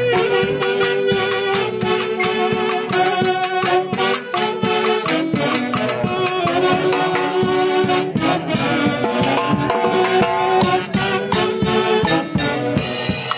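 Andean orquesta típica playing a lively tune: a section of saxophones carries the melody together over a harp and struck percussion keeping a quick beat.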